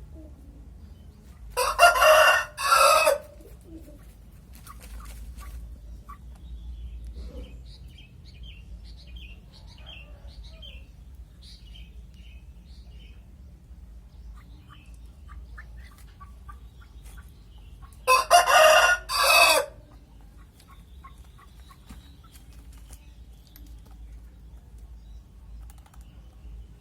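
A rooster crows twice, the crows about sixteen seconds apart. Soft clucking between the crows, over a low background hum.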